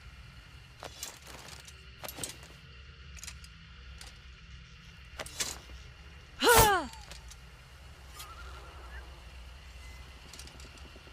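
A katana swung once through the air, a short, loud swish that falls quickly in pitch, about two-thirds of the way through, with a few faint clicks before it.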